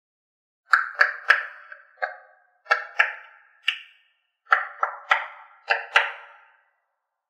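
A run of about a dozen sharp ringing pings, like small hard objects being struck or clinking together. Each ping dies away within about half a second, and they come at uneven intervals in loose clusters.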